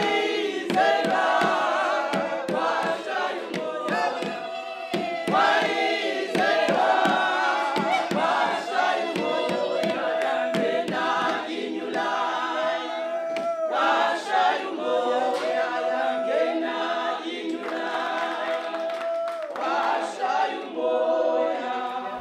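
A choir of several voices singing together a cappella, with some notes held.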